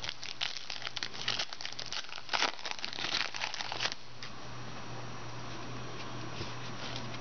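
Football trading cards being flipped through by hand, card sliding over card: quick papery rustles and clicks for about four seconds, then only a steady low hum.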